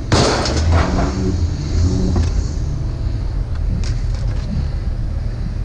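A vehicle engine running steadily with a low rumble, and a sharp clatter just after the start as scrap is handled.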